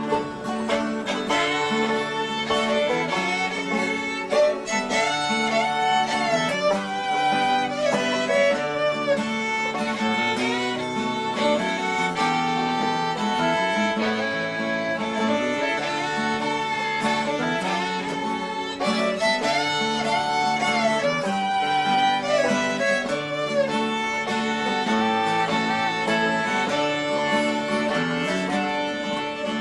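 Background instrumental music in a bluegrass style: a fiddle carrying the melody over guitar accompaniment, with a steady beat.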